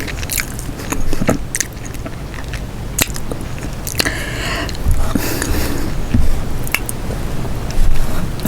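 Close-miked eating: chewing, with scattered sharp clicks and crackles of crawfish shells being handled, and a longer hissing noise about four seconds in.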